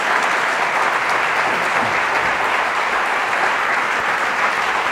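Audience applauding steadily, welcoming a guest speaker as she is introduced.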